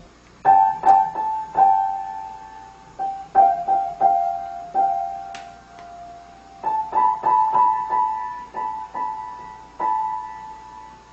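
Piano keys pressed by a cat's paw: single notes and pairs of notes struck in an uneven, halting rhythm, each ringing on and fading, with short pauses between groups. The notes move a little higher about two-thirds of the way through.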